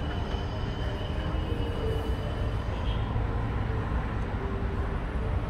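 City street noise: a steady low rumble of passing traffic, with a faint thin high tone in the first half.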